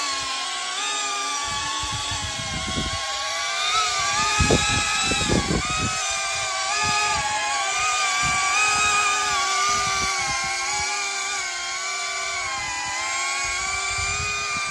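Small FPV quadcopter with ducted, guarded propellers hovering close by: a steady whine of several tones from the motors and props, wavering up and down in pitch as the throttle is constantly corrected to hold the hover. Brief low rumbles come in about four to six seconds in.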